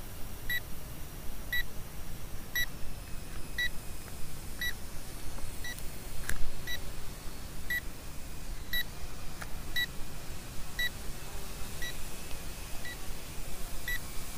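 Aerocraft 1906 GPS drone kit sounding short, high electronic alert beeps, about one a second, over a low rumble.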